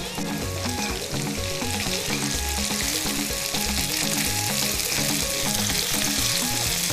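Sliced onions sizzling in oil in a nonstick frying pan as they are stirred, caramelizing; the sizzle grows gradually louder. A quiet bass line of background music runs underneath.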